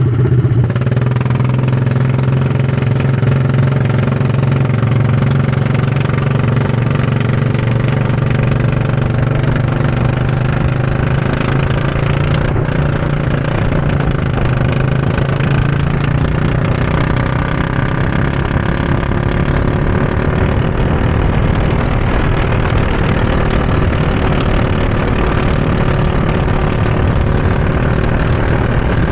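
Go-kart engine heard from the driver's seat, running at a steady note for the first several seconds, then rising and falling in pitch as the kart is driven through the corners of the track.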